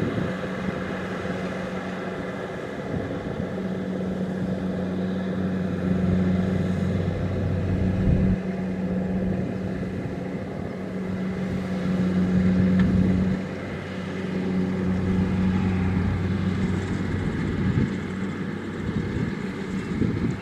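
Kubota DC-70 Plus combine harvester running steadily with a deep engine hum that swells and eases every few seconds.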